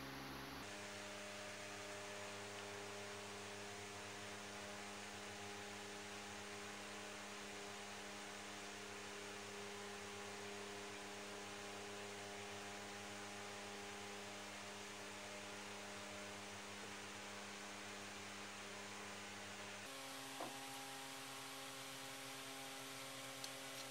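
Steady electrical hum with faint hiss; the hum changes character abruptly about twenty seconds in, and there are a couple of faint clicks near the end.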